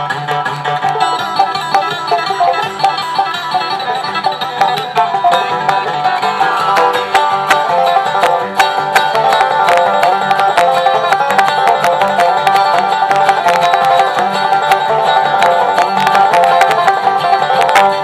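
Bluegrass band playing an instrumental passage, with fast, dense string picking.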